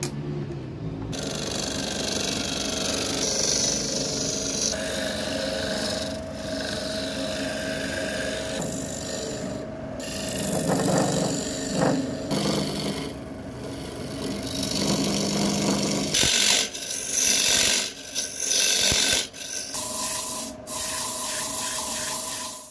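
Wood lathe running while a turning tool cuts and scrapes the spinning wood, in short clips that change abruptly every second or few seconds, with a steady motor tone under the scraping in some of them.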